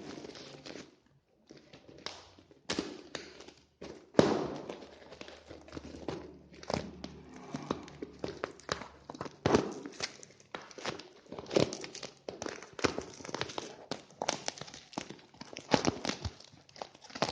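Handling noise from unboxing a roll of 3x2.5 electrical cable: irregular knocks, clicks and rustling of the cable coil and its plastic packaging, with a sharper knock about four seconds in.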